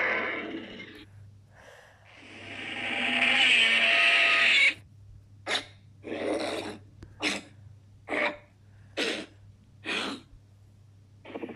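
Custom monster vocal sound effects: a long call that swells up over about three seconds and cuts off abruptly, then six short calls at roughly one-second intervals.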